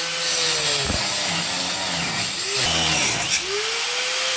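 Angle grinder grinding off the head of a bolt that spins in its frame bracket, metal on abrasive disc hissing loudly. The motor's pitch dips and climbs back up twice as it is let off and pressed on again.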